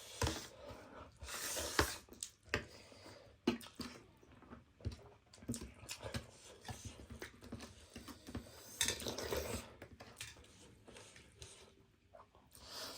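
Spicy instant noodles being eaten: chewing and slurping, with utensils clicking against a bowl. Irregular short clicks are broken by a few longer, hissy slurps.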